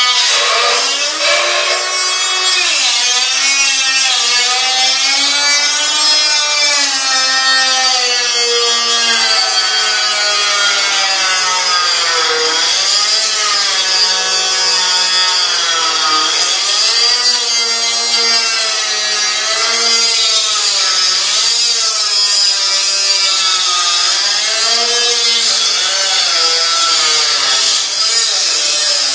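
Power cutting tool working through the frame to cut notches for a rear dropmember, its motor whine repeatedly dipping in pitch and recovering as it loads up in the cut, over a steady harsh hiss of cutting.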